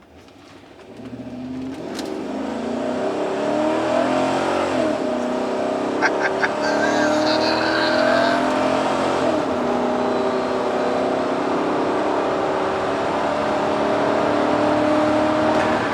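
Chevy Tahoe's 5.3-litre V8 accelerating to 55 mph. The engine note climbs, drops back twice as the transmission upshifts, then holds steady at cruise. It runs smoothly with no lifter tick to be heard.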